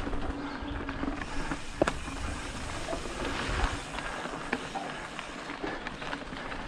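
Mountain bike rolling along a dirt singletrack: steady tyre noise with the bike rattling and a few sharp knocks over bumps, the loudest about two seconds in.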